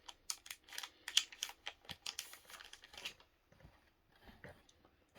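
Foil Pokémon booster pack wrapper being cut and pulled open: a quick run of crisp snips and crinkles for about three seconds, then a few fainter ticks.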